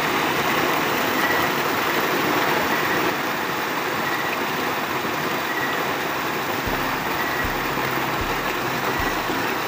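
River water pouring over a rock and churning in a small cascade: a steady rush of white water.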